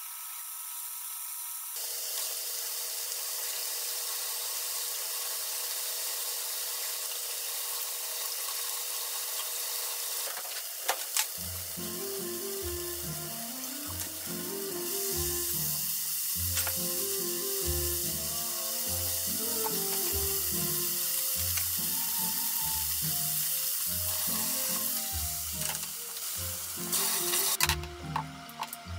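Diced beef cubes sizzling in a frying pan, a steady hiss, with a couple of sharp clicks about a third of the way in and a flurry of clicks near the end. Background music with a steady beat comes in over it after about eleven seconds.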